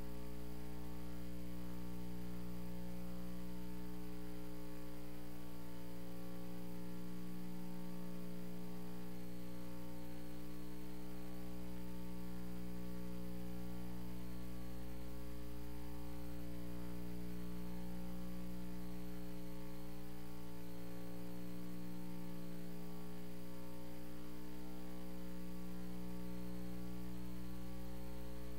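Steady electrical mains hum with a stack of overtones, unchanging throughout; no other sound stands out.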